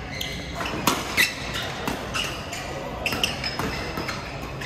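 Badminton rally: sharp racket strikes on the shuttlecock, the loudest two about a second in, a fraction of a second apart, with short squeaks of shoes on the court floor, echoing in a large sports hall.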